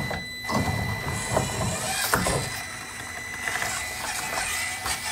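Traxxas TRX-4M RC crawler, front axle fitted with overdrive gears, crawling over concrete rocks: small electric motor and gear drivetrain whining steadily, with several knocks of tyres and chassis against the rocks.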